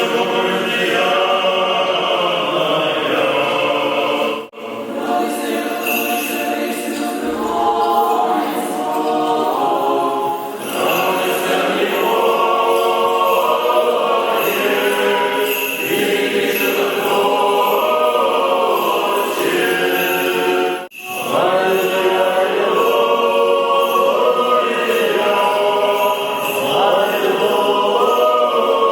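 Choir singing Orthodox liturgical chant a cappella, in long sustained phrases, with two brief pauses: one about four seconds in and one about two-thirds of the way through.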